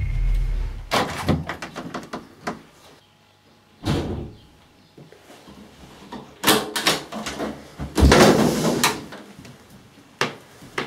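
A door being knocked, rattled and banged in irregular bursts: a run of knocks early, a single deep thump, another run of knocks, then a louder, longer rattling bang and one last sharp knock. Low throbbing music fades out in the first second.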